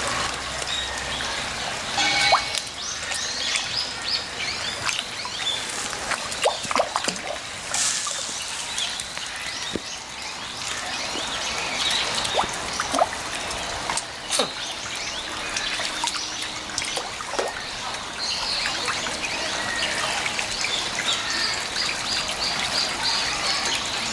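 Water trickling and splashing steadily, with small birds chirping in quick runs of short high notes and a few sharp clicks.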